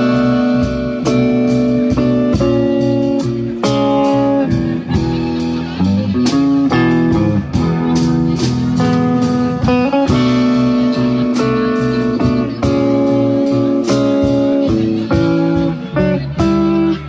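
Live blues band playing an instrumental passage: electric guitars over bass guitar and a drum kit keeping a steady beat.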